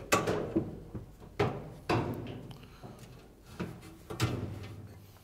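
Sheet-metal clunks and knocks as an Amana dryer's front bulkhead is lifted off its drum and pulled forward out of the cabinet. About half a dozen sharp knocks with a short ring each, the loudest right at the start.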